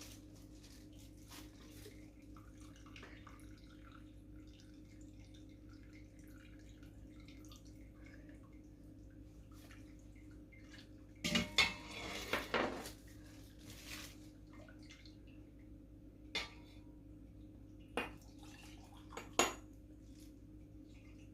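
Kitchen dishes and utensils clinking, with a burst of clattering about halfway through and three single knocks after it. Faint dripping of liquid and a low steady hum lie underneath.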